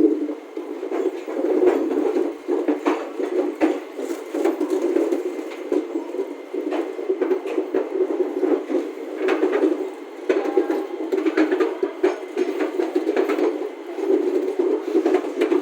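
Train wheels running on the rails, a steady rumble with irregular clicks and rattles from the track.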